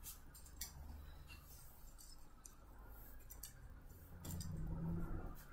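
Faint rustle of a knit cardigan being pulled on over a long-sleeved top, with a few light clicks, a little louder about four seconds in.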